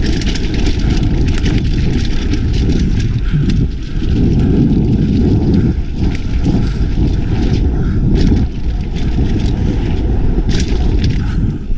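Mountain bike descending a dirt trail at speed: a constant heavy rumble of wind on the microphone and tyres on the dirt, broken by frequent rattles and knocks as the bike goes over bumps.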